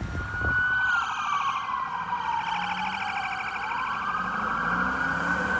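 Police vehicle's electronic siren in a slow wail: its pitch falls over a couple of seconds, then climbs again toward the end.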